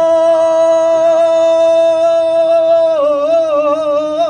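A man singing one long, high, held note into a microphone with no accompaniment. About three seconds in, the note begins to waver up and down.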